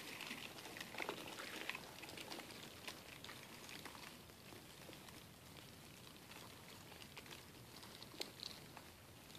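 Dubia roaches crawling over cardboard egg crate and an orange slice: faint, scattered ticks and scratchy rustling, a little busier at the start and with a couple of sharper ticks near the end.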